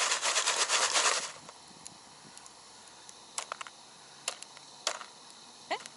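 Foil-pan stovetop popcorn being shaken over heat. For about the first second there is a dense rattle and sizzle as the pan is shaken, then single pops every second or so. The kernels are two years old and are only beginning to pop.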